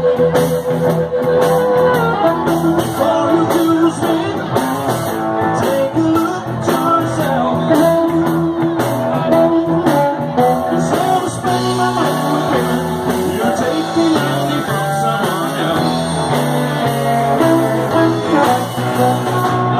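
Blues band playing live: guitars over a steady bass line, with a lead line of long held notes.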